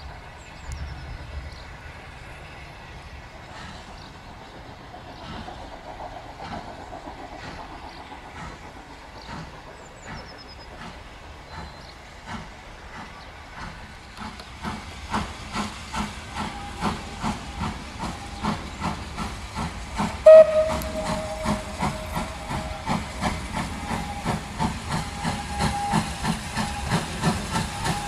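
Lancashire & Yorkshire Railway 0-6-0 steam locomotive No. 52322 starting away with its train. At first there is steam hissing. Then, from about halfway through, its exhaust beats come at about two a second and grow louder as it approaches. A short whistle blast is the loudest sound, about twenty seconds in.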